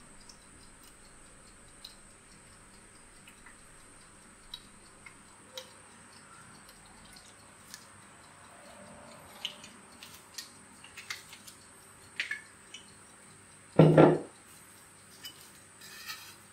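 Scattered small clicks and taps of a knife handled on a wooden cutting board, with one loud double knock of the knife on the board near the end.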